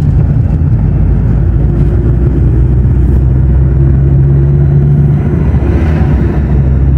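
Car driving noise heard from inside the cabin: a steady low drone of the engine and road noise.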